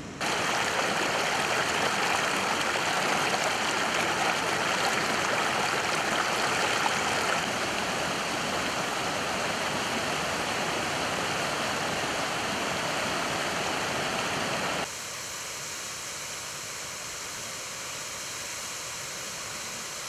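Rushing white water of a mountain waterfall cascade and its stream, a steady dense rush. About 15 s in it drops abruptly to a quieter, thinner rush.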